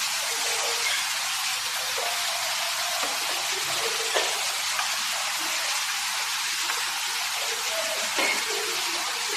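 Steady splashing rush of water falling down an artificial rock waterfall, with faint voices murmuring in the background.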